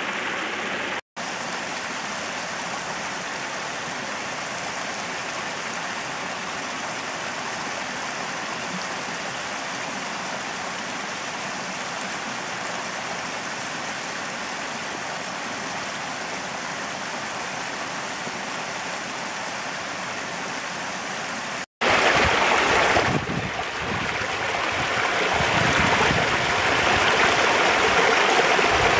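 Mountain stream running over rocks and small cascades, a steady rush of water. There are two very brief drops to silence, one about a second in and one about three quarters of the way through. After the second the water is louder and fuller.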